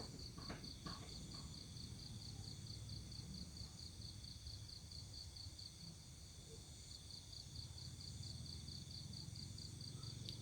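Faint insect chirping, cricket-like, a steady train of high pulses at about five a second, over a low steady rumble.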